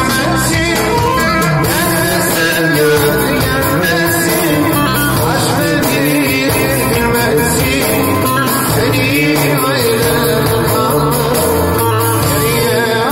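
Live Turkish folk-style music: a man's voice singing a wavering melody into a microphone, over an amplified bağlama (long-necked saz lute) and a keyboard with a steady beat, all played through PA speakers.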